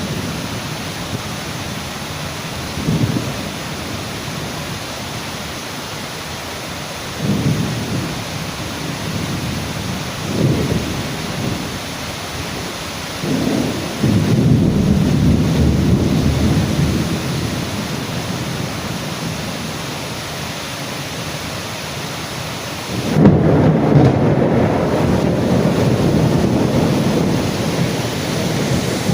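Steady rain hissing, with low rumbles that swell and fade several times. The strongest starts sharply about 23 seconds in and dies away over several seconds.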